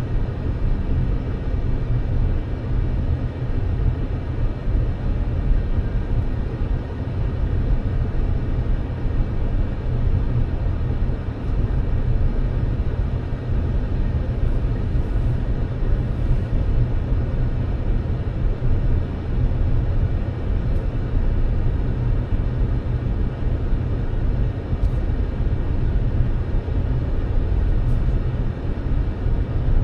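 Steady low rumble of a car driving, the road and engine noise holding even throughout.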